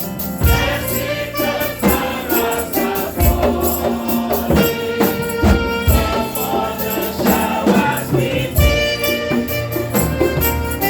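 Gospel church music: singing over a steady jingling percussion rhythm, with deep bass notes every couple of seconds.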